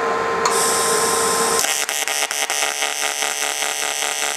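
AC TIG arc on aluminium from a Longevity Innovator 255i with pulse on at its factory settings. After a steady hum and a click, the arc strikes about one and a half seconds in and buzzes with an even pulsing beat of about five a second.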